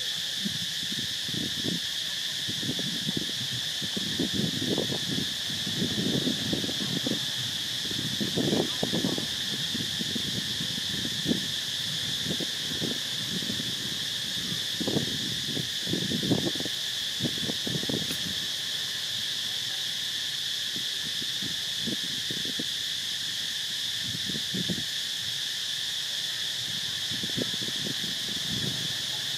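A steady, high insect chorus drones throughout, with irregular low muffled noises coming and going underneath, most of them in the first two-thirds and a few more near the end.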